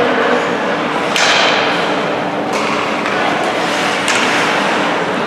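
Ice hockey play in an arena: sharp scrapes and knocks of skates, sticks and puck, three of them standing out about a second and a half apart, over a steady hall noise.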